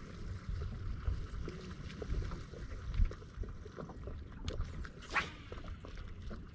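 Wind buffeting the microphone on a bass boat, with small scattered knocks and a brief swish about five seconds in.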